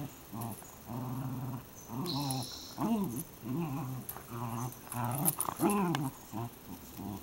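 Dogs growling in play during a tug of war over a rope toy: a run of short growls, about two a second, some rising and falling in pitch. A brief high squeak comes about two seconds in.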